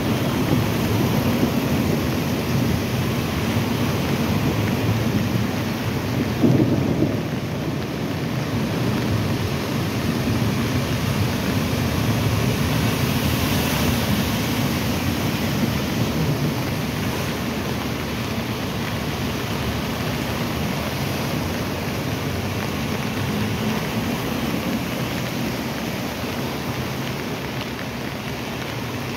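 Floodwater rushing along a street channel, a steady loud rumble, with vehicles splashing through the flood; a brief louder surge about six and a half seconds in.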